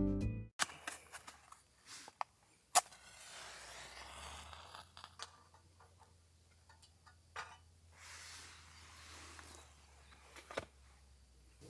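Guitar music cutting off about half a second in, then faint intermittent rustling and scattered sharp clicks and knocks, with the strongest clicks about three seconds in and near the end.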